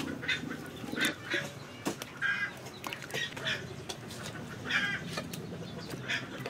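Poultry calling in the background: short, nasal calls, one every half second to a second, with a few faint clicks over a low hiss.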